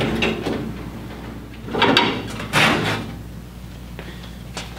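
Rusty metal gas pump body scraping and knocking as it is shifted and turned on its stand. There are two loud scraping slides in the middle and a few lighter knocks around them.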